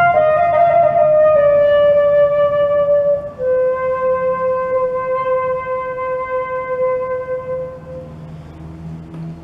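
Background music: a solo flute melody steps down in pitch to one long held low note that fades away.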